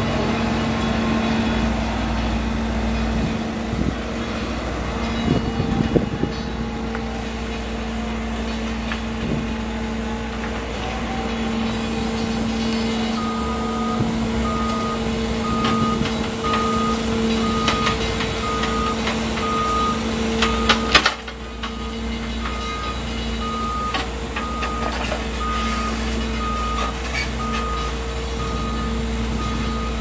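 Komatsu WB93R backhoe loader's diesel engine running steadily while its bucket digs soil, with occasional clanks and scrapes of the bucket against dirt and stones. A little before halfway through, a reversing alarm starts beeping, about once a second.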